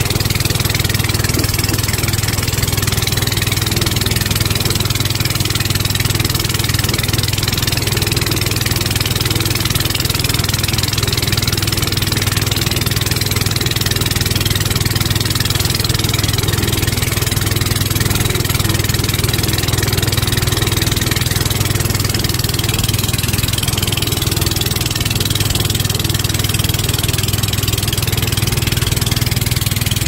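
Wooden longtail boat's engine running steadily under way, a constant low hum, with the rush of water along the hull.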